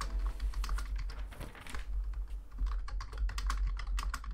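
Typing on a computer keyboard: irregular, quick key clicks, several a second, over a steady low hum.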